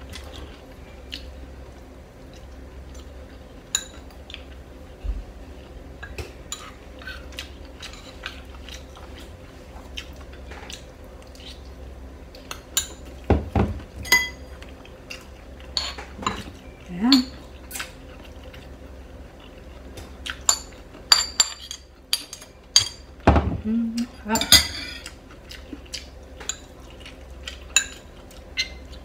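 Metal spoon clinking and scraping against a small ceramic bowl while eating: irregular sharp clinks, busier in the second half.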